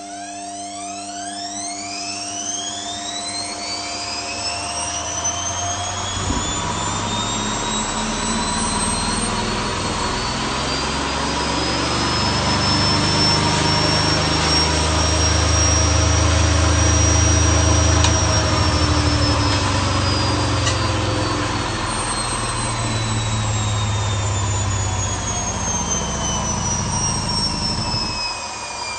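Hotpoint WMA30 washing machine, its motor hotwired to drive the drum straight to a high spin. A whine climbs steadily in pitch for about eighteen seconds over a growing drum rumble, then falls as the drum slows. The low rumble cuts out suddenly near the end.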